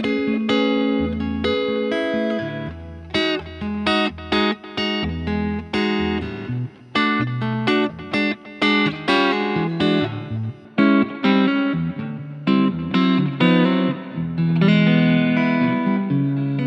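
Self-built Telecaster Thinline electric guitar played clean, picked single notes and chords with short stops between phrases, then longer ringing chords near the end. It runs through a Boss Blues Driver as a clean boost and a light Boss DD200 delay, into a self-built Fender Tweed Deluxe 5E3 valve amp with a Jensen P12R speaker, miked with a Shure SM57, and a Laney Lionheart L5 taken from its line out.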